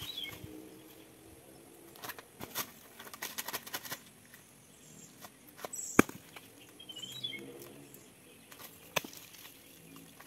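A man's bare hands and feet gripping and scraping on a coconut palm trunk as he climbs: scattered knocks and rustles, with one sharp crack about six seconds in. A bird chirps twice, near the start and about seven seconds in.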